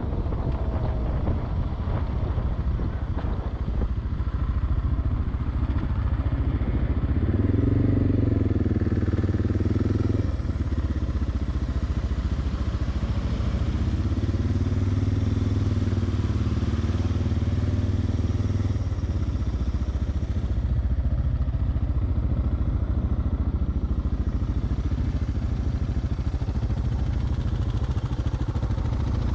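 Single-cylinder dual-sport motorcycle engine running under way, a steady low rumble. Its pitch swings up and down twice, about a quarter and about half of the way through.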